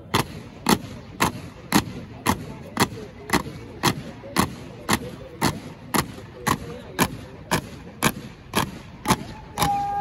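A drill contingent's boots striking the ground in unison, a sharp beat about twice a second, keeping step in a marching drill. Near the end a held drill command is shouted over the beat.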